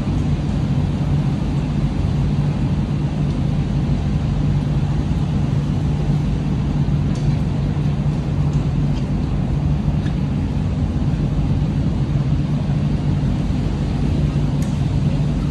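Steady rain falling on a wet outdoor court, with a constant low hum beneath it.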